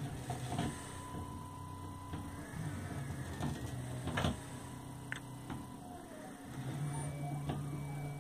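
Small DC gear motors of a two-wheeled line-following robot whirring as it drives and steers along a taped line, with a few sharp clicks. Late on, the hum steps up in pitch as the motors change speed.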